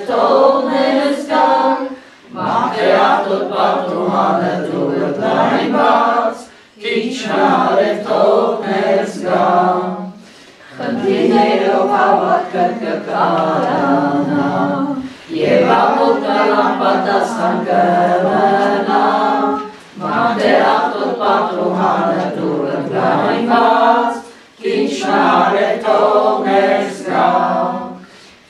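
Unaccompanied hymn singing led by a man's voice, in sung phrases of about four to five seconds, each broken by a short pause for breath.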